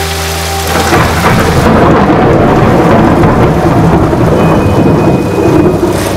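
Heavy rain pouring down. About a second in, a loud rolling rumble of thunder breaks in and goes on rumbling under the rain.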